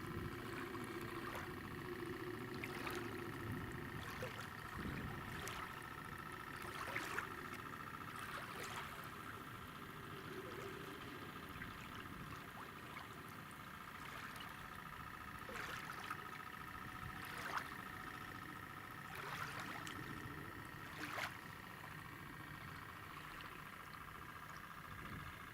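RC model tugboat under way on the water: its small motor gives a steady thin whine over low lapping water, with a few sharp ticks scattered throughout.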